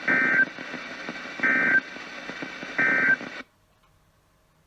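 Three short bursts of the EAS SAME digital data signal, the end-of-message (NNNN) code that closes the weekly test, sent as a shrill two-tone warble about 1.3 seconds apart over radio hiss. The hiss cuts off suddenly just after the third burst.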